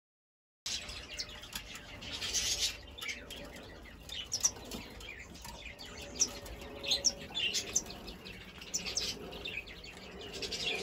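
Many short, high bird chirps, coming irregularly and overlapping, starting about a second in.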